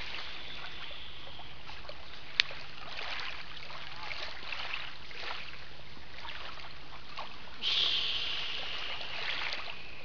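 Small lake waves lapping on a sandy shore, a soft irregular washing over a steady outdoor hiss, with a louder rush near the end. A single sharp click about two and a half seconds in.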